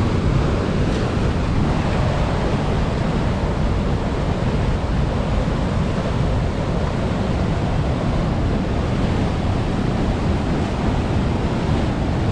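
Steady rushing of water pouring over a dam spillway weir and racing past the rocks, with wind buffeting the microphone.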